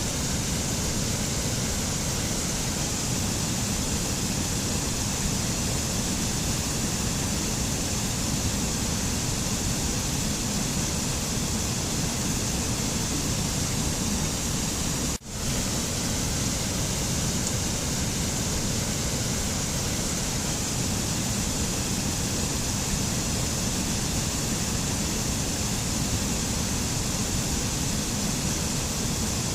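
Steady, even rushing noise of a nature ambience track, with no tones or rhythm, and a split-second dropout about halfway through.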